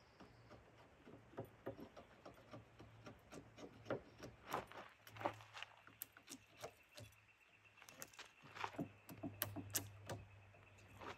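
Wood chisel pushed by hand, paring the half-lap joint of a 6x6 timber beam: faint, irregular scrapes and clicks as the blade shaves the wood.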